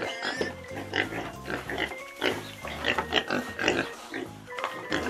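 Several piglets making quick, short grunts and squeals in rapid succession, over background music.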